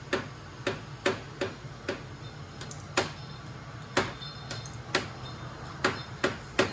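A series of sharp clicks or taps, irregularly spaced at about one or two a second and coming faster near the end, over a low steady hum.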